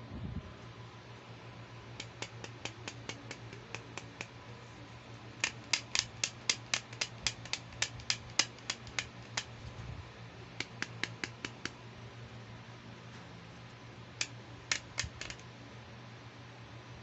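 Sharp plastic clicks from fingers working a toy plastic hairbrush, in quick even runs of about five a second with pauses between the runs.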